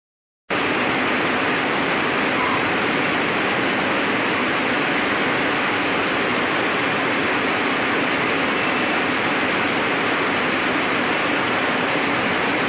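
Steady, dense noise of textile spinning-mill machinery running, with a simplex roving frame in front. It cuts in abruptly about half a second in and then holds even, with no audible change as the machine's push buttons are touched.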